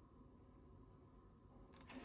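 Near silence: a faint steady hum of room tone.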